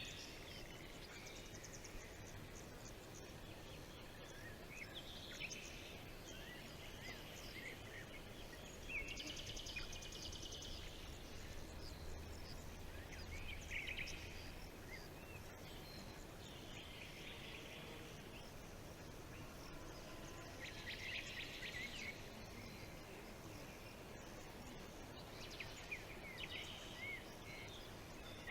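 Forest birds calling and singing: short chirps and whistled glides, with rapid buzzy trills about every four to six seconds, over a faint steady background hiss.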